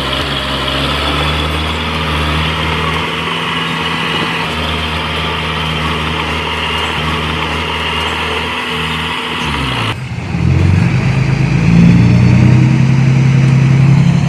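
Diesel engine of heavy earthmoving equipment running with a steady, shifting drone. About ten seconds in, the sound changes abruptly to a louder engine note.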